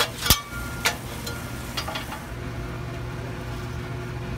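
Metal spatula clanking and scraping on a steel flat-top griddle, a handful of sharp, ringing strikes in the first two seconds, over a hiss of cooking on the griddle that drops away about two seconds in. A steady low hum runs underneath.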